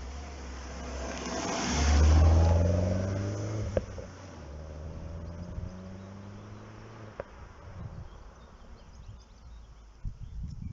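Mini Cooper S R56's turbocharged 1.6-litre four-cylinder on its stock exhaust, driving past: the engine note swells to a peak about two seconds in, then drops in pitch and fades as the car moves away. Two sharp clicks come later.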